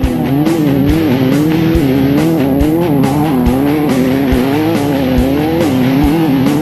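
Race buggy engine running hard, its pitch rising and falling again and again, mixed under rock music with a steady drum beat.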